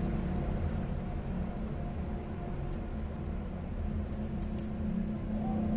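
Faint clicks and rustles of a wristwatch being put on the wrist and its strap fastened, in two short clusters around the middle, over a steady low background hum.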